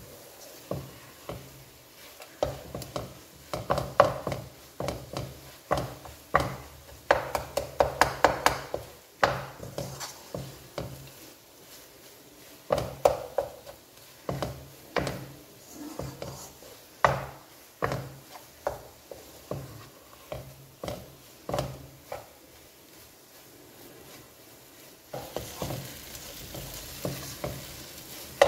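Wooden spatula scraping and knocking against a black kadhai while a thick, crumbly mix of fig halwa and khoya is stirred and roasted. The strokes come in quick irregular runs.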